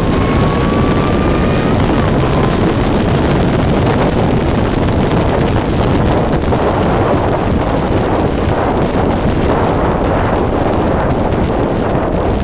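Wind buffeting an onboard camera microphone at racing speed over a vehicle's engine. A faint engine note rises slightly in pitch over about the first two seconds.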